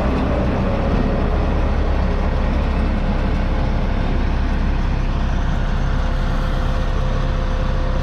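Perkins 3.9-litre four-cylinder diesel engine of a 1970 Dronningborg Dania D1200 self-propelled combine harvester, running steadily.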